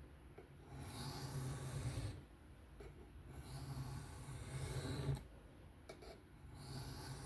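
Steel knife blade drawn in repeated sharpening passes across a sharpening stone, a rasping scrape that comes in three stretches with short pauses between them.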